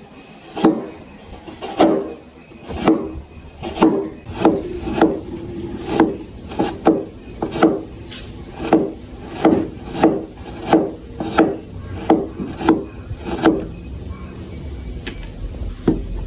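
Wood being cut by hand in a series of about twenty sharp strokes, each falling in pitch, that stop about three seconds before the end, leaving a faint low rumble.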